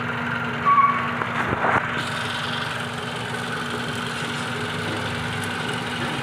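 Toyota Camry engine idling steadily under the open hood, with a few short louder sounds about a second in.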